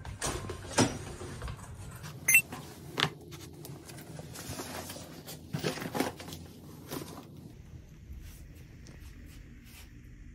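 Footsteps on a wooden floor and handling noises: a few scattered knocks and rustles, loudest in the first seven seconds, over quiet room tone.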